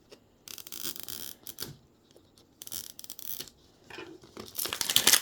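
Plastic packaging crinkling and rustling as it is handled and torn open, in three short bursts, the loudest near the end.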